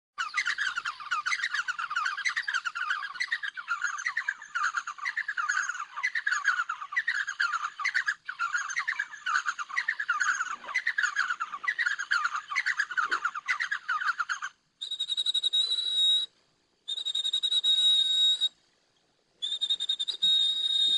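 Rapid chirping, like a bird's call, repeating many times a second for about fourteen seconds. Then come three separate stretches of a steady high whistle, each starting and stopping abruptly.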